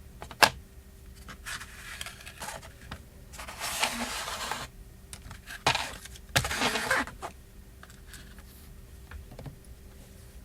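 Small phone-repair tools and parts being handled on a work surface: a sharp click near the start, then several short bouts of scraping or rustling, with another click in the middle.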